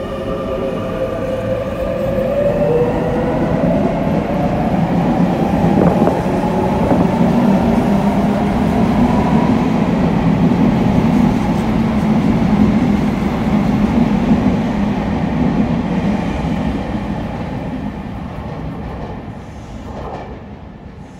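Sotetsu 8000 series electric train, re-equipped with a Hitachi IGBT VVVF inverter, pulling out of the station. In the first few seconds the inverter's whine of several tones climbs in pitch as the train accelerates. Then the running noise of the passing cars builds and fades as the train leaves.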